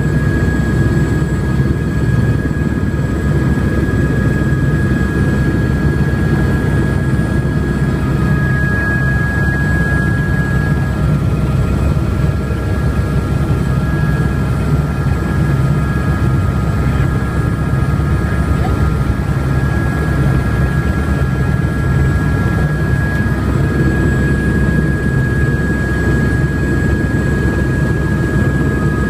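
Helicopter running steadily, heard from inside the cabin: a loud low rotor beat under a steady high whine.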